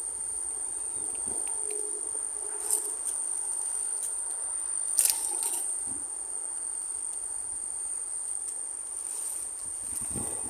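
Insects trilling steadily at one high pitch, unbroken throughout. Two sharp clicks stand out, about a quarter and halfway through.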